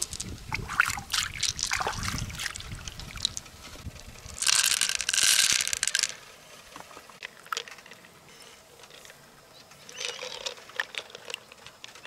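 Water trickling and splashing as hands work in an opened freshwater mussel, with scattered small clicks and a louder gush about halfway through.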